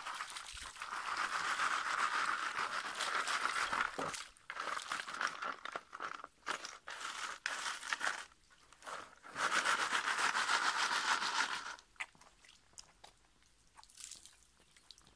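Sand and gravel grinding and rattling in a plastic gold-prospecting sieve stacked on a gold pan as it is shaken in river water, with water sloshing and draining through. It comes in bouts, heaviest at the start and again about ten seconds in, and dies away about twelve seconds in.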